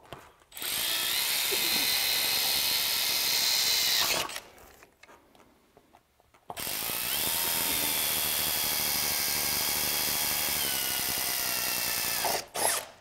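Makita cordless drill boring holes into a boat's aluminum transom: two runs of steady high whining, the first about four seconds long, the second about six, with a short silent pause between.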